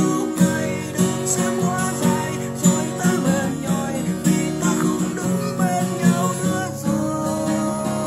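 Acoustic guitar strummed in a regular rhythm, with a man singing along.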